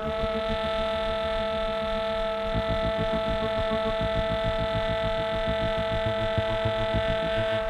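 Tenor saxophone holding one long, steady note, with a low rhythmic pulsing joining underneath about two and a half seconds in.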